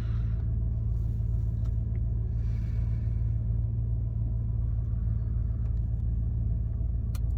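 Chevy van's engine idling steadily, heard from inside the cabin as an even low rumble.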